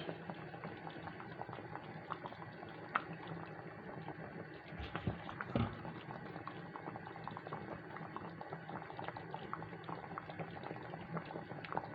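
Pot of chicken soup boiling, with many small bubbling pops; two low thumps about five seconds in.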